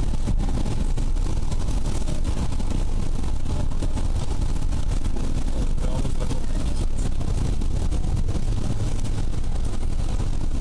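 Steady cabin noise of a Ford Puma driving on a wet road: a deep rumble of tyres and engine, with rain ticking on the windscreen.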